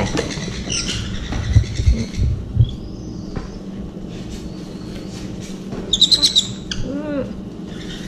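Baby sun conures giving short high squawks, with a quick run of about five sharp calls around three-quarters of the way through. A few dull knocks come in the first few seconds.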